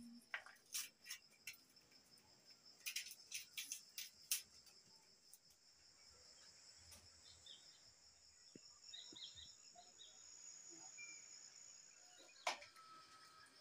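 Faint, steady high-pitched chirring of crickets, with a cluster of sharp taps in the first few seconds and one more near the end.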